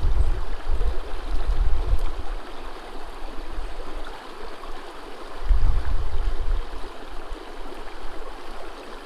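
Stream water rushing steadily over a riffle, with low rumbles of wind buffeting the microphone a few times, strongest near the start and again past the middle.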